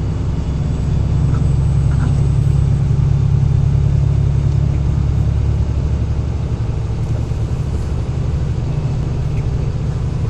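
Semi truck's diesel engine and road noise droning steadily while the rig is driven, a low rumble that swells slightly a couple of seconds in.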